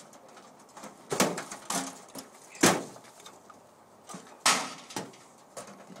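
Several separate metal knocks and clanks, about four over a few seconds, as scrap microwaves are broken apart.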